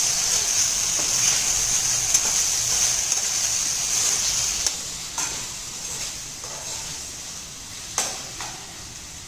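Soya chunks and masala sizzling in an oiled kadhai while a steel ladle stirs them, with a few sharp clinks of the ladle on the pan, the loudest near the end. The sizzling dies down after about five seconds.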